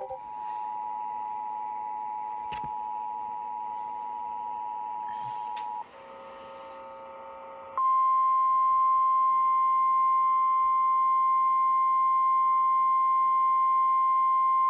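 Emergency Alert System two-tone attention signal, two steady tones sounding together for about six seconds. A brief, quieter chord of several tones follows. About eight seconds in, the louder single-pitch NOAA Weather Radio 1050 Hz warning tone starts and holds steady.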